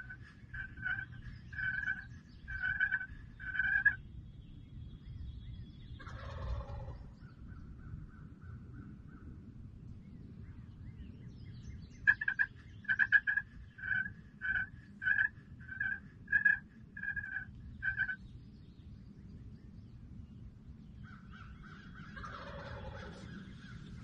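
Wild turkeys calling: a run of evenly spaced yelps, then a gobble about six seconds in; a second, louder run of yelps follows, and another gobble comes near the end.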